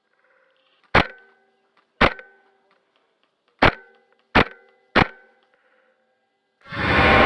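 Five sharp, ringing hits at uneven spacing, followed near the end by a loud swelling boom that rings on.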